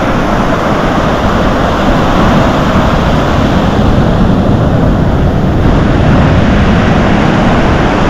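Ocean surf washing up a sandy beach in a steady rush, mixed with wind buffeting the microphone.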